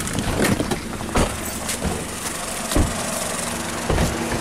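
People scrambling out of a car: a door opening and several heavy thumps and knocks from movement and footsteps about one, nearly three and four seconds in, over a steady low hum.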